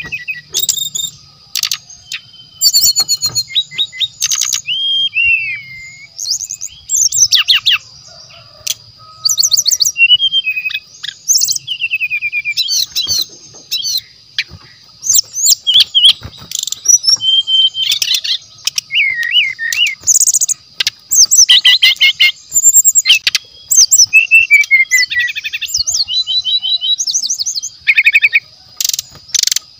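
Brown-chested jungle flycatcher singing long runs of rapid, varied chirps, trills and sliding whistled notes, with short pauses between phrases, over a steady thin high-pitched whine.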